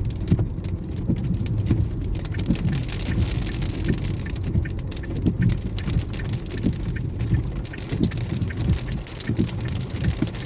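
Hail and rain pelting down hard: a dense, fast patter of sharp taps over a steady low rumble.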